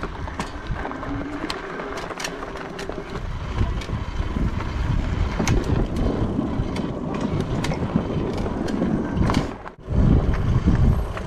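Lectric electric bike being ridden over a dirt trail and the planks of a wooden footbridge: tyre rolling noise with scattered knocks and rattles, and wind rumbling on the microphone. About ten seconds in the sound drops out briefly, then the low rumble comes back louder.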